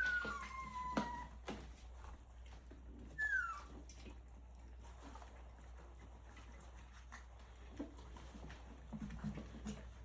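Three-week-old Rottweiler puppies whimpering: thin, high squeals falling in pitch at the start and again about three seconds in, among faint clicks and smacks of the pups at the mush.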